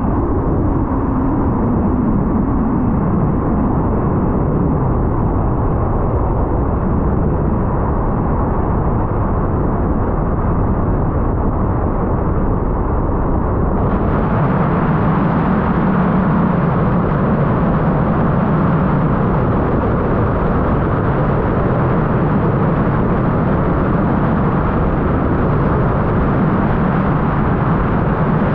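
Steady road and wind noise from a moving car. About halfway through the hiss suddenly gets brighter.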